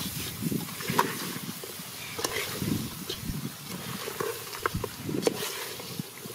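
A steel ladle stirring thick goat head curry in an aluminium pot, with the wet churn of the meat and masala being turned and irregular sharp clinks of metal on the pot.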